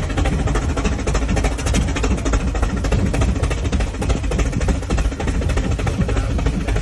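An engine running loudly and steadily with a fast, even pulse.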